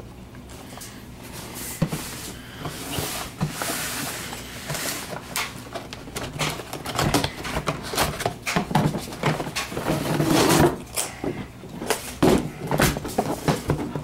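A cardboard box being unpacked by hand: rustling and scraping with an irregular run of knocks and clunks as an aluminium-framed hard case is worked out of it. The sounds grow busier and louder in the second half.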